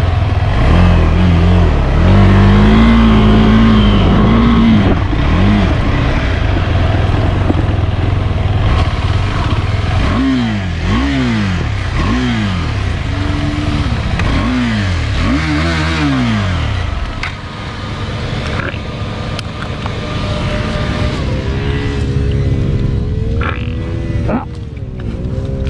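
KTM 390 Adventure's single-cylinder engine working off-road with traction control switched off, the revs rising and falling again and again through the middle as the throttle is worked. Near the end it settles to a steadier, lower running note.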